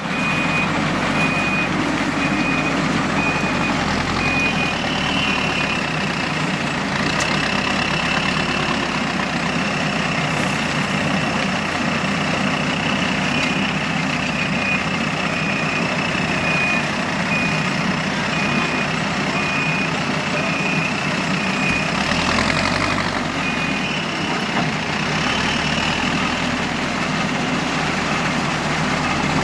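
Heavy diesel machinery, a JCB 3DX backhoe loader, running and working, with a reversing alarm giving evenly spaced beeps, a little over one a second, for the first several seconds and again through the middle of the stretch.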